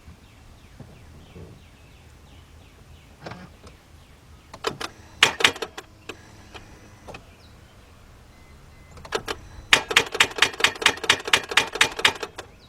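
Starter solenoid of a 2004 Mercedes-Benz C320 (3.2 V6) clicking as the key is turned: a short burst of clicks, then a rapid chatter of about six clicks a second for over two seconds, with no cranking. This is the sign of a weak battery.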